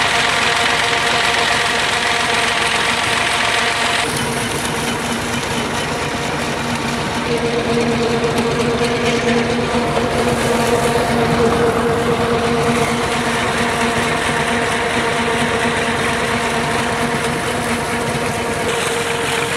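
Massey Ferguson 240 tractor's diesel engine running steadily while driving a water pump, with water gushing out of the discharge pipe and splashing into the flooded field.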